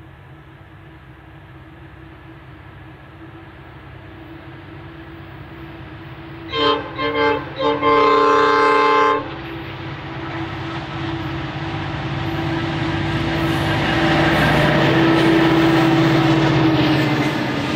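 G class diesel-electric locomotive hauling a loaded quarry freight upgrade, its engine working steadily and growing louder as it approaches. About six and a half seconds in it sounds its multi-note horn: three short toots, then one longer blast. Near the end the locomotive and hopper wagons pass close by, engine and wheels at their loudest.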